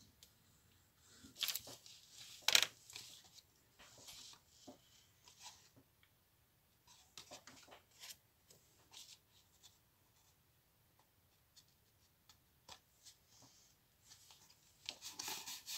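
Paper and cardstock being handled: scattered rustles and light taps, the two loudest in the first three seconds, as patterned paper panels are glued and pressed onto a red cardstock box.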